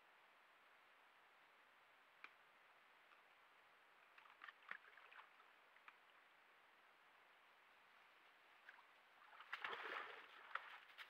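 American black bear moving in a shallow muddy pool: a few faint small splashes, then louder sloshing and dripping near the end as it climbs out of the water.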